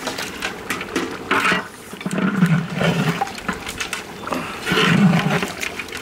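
Long-handled metal ladle stirring a thick quail curry in a large metal cooking pot, scraping and knocking against the pot with sharp clicks. Twice, about two and a half and five seconds in, there are heavier churning strokes.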